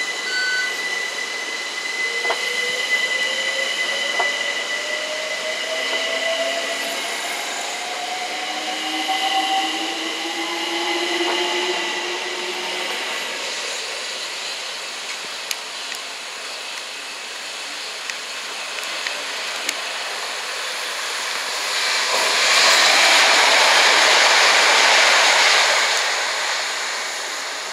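London Overground Class 378 electric train pulling out, its traction motors whining with a pitch that climbs steadily for about ten seconds as it accelerates. Later a Southern Class 377 electric train passes at speed on the through line, a loud rush of wheels and air that builds, holds for a few seconds and fades.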